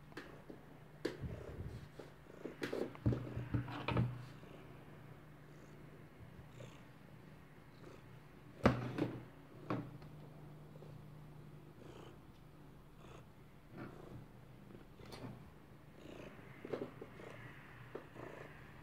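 Tabby cat purring steadily close to the microphone, with a few short knocks and rustles from the cat shifting against the desk and phone. The loudest knock comes about nine seconds in.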